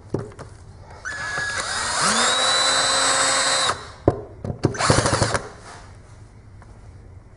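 Cordless drill-driver working at a stuck screw: the motor spins up with a rising whine, runs steadily for a couple of seconds and cuts off, then gives a few short bursts before stopping, as its lithium battery goes flat.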